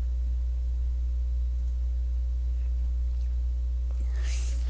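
Steady low electrical hum, with a short crunch of a bite into honey garlic fried chicken about four seconds in.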